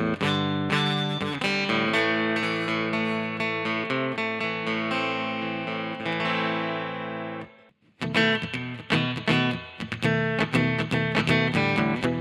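Fender Santa Rosa acoustic guitar being played: held, ringing chords that die away about seven and a half seconds in, then a quicker passage of picked notes.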